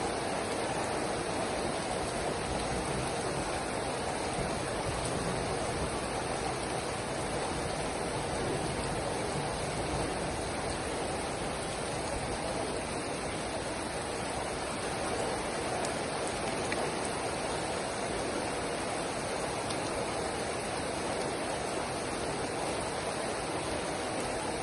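Steady rain falling, an even, continuous hiss with no separate drops, thunder or other events standing out.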